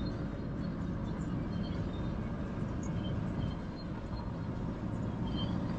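Vehicle driving on a sealed road, its engine and tyre noise heard from inside the cabin as a steady low rumble.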